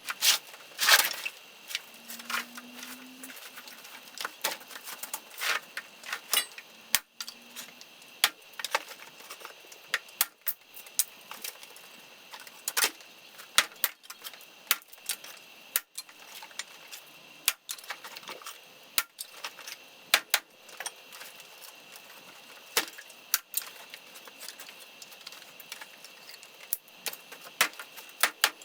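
Irregular sharp clacks and knocks of dry firewood sticks handled against one another. A few louder knocks stand out, about a second in and again near the middle.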